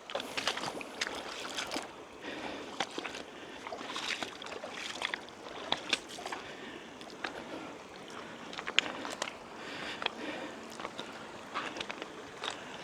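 Wading through a shallow, stony river: water splashing and sloshing with each step, over the steady run of the stream, with irregular sharp clicks and knocks throughout.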